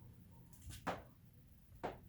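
Two short, sharp clicks about a second apart as the door switch is fitted back in during reassembly of the door.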